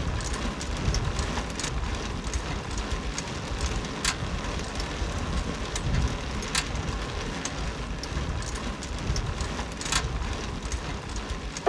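Outdoor city street noise: a steady hiss of traffic with a low rumble and scattered sharp clicks.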